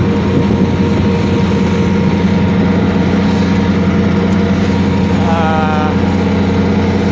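2004 truck's engine idling steadily.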